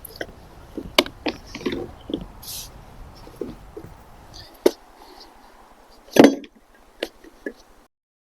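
Plastic scraper working at old lap sealant on an RV rubber roof: a few short scrapes among irregular sharp knocks and clicks, cutting off suddenly near the end.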